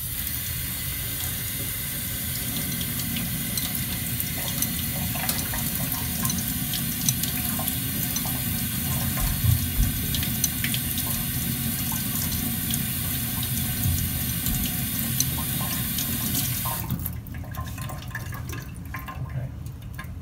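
Tap water running into a stainless-steel sink and splashing over a honing stone as it is rinsed and rubbed by hand, with small scattered ticks. The water shuts off about 17 seconds in.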